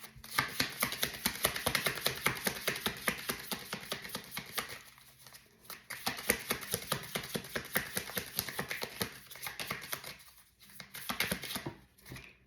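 Tarot cards being shuffled by hand: rapid papery flicking and clicking in two long runs with a brief pause about five seconds in, and a short last burst near the end.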